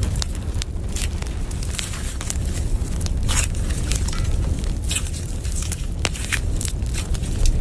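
Slime packed with foam beads being squeezed and kneaded by hand, giving irregular crunchy crackles and popping clicks over a steady low hum.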